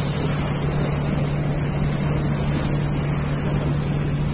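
Steady engine drone of a river passenger vessel under way, a constant low hum that does not change, mixed with the rush of wind and water.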